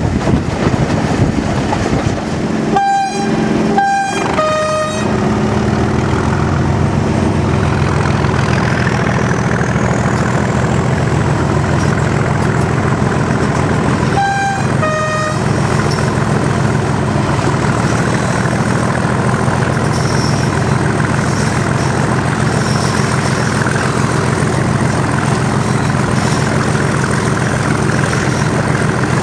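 The English Electric 12CSVT V12 diesel engine of Class 37 locomotive 37254 running steadily under power. A high whistle, the turbocharger spooling up, rises between about seven and ten seconds in and then holds. The locomotive's two-tone horn sounds three short blasts (high, high, low) about three seconds in, and two more (high, low) about fourteen seconds in.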